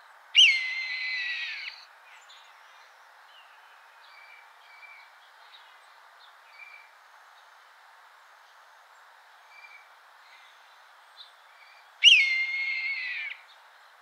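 Red-tailed hawk giving its shrieking screech call twice, about twelve seconds apart. Each call is one falling scream lasting about a second and a half.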